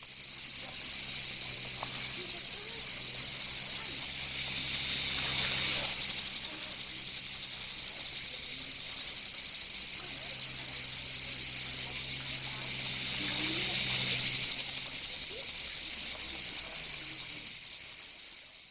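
Insect chorus: a loud, steady, high-pitched trill made of very fast pulses. It fades in at the start and fades out at the end.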